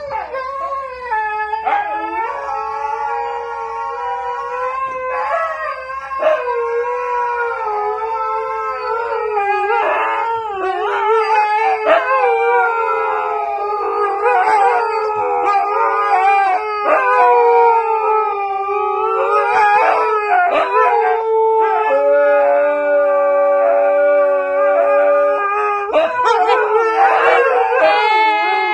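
Husky howling on cue: long, wavering howls that rise and fall in pitch and run on with hardly a break.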